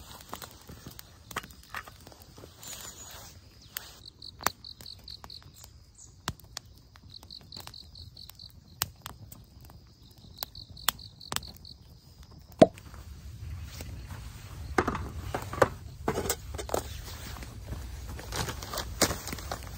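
An insect chirping in three short, rapid pulsed trains about three seconds apart, over scattered sharp clicks and knocks. The knocks and handling noise grow louder and busier in the second half.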